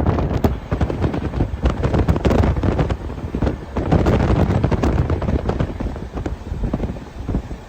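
Wind buffeting the microphone: a loud, irregular low rumble with crackling gusts and no steady tone.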